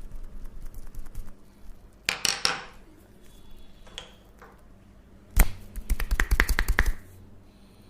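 Hands striking a person's body during a massage: one sharp slap, then a quick run of percussive strikes at about seven a second for a second and a half. Before that come softer rubbing and patting sounds and a short slapping burst.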